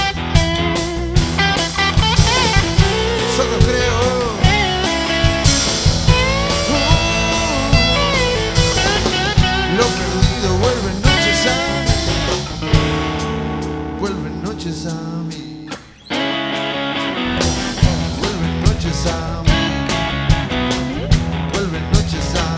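Rock band playing live on drum kit, bass and electric guitars, with a lead line bending and wavering in pitch over it. About 13 seconds in the band thins out and fades, then comes back in all at once just after 16 seconds.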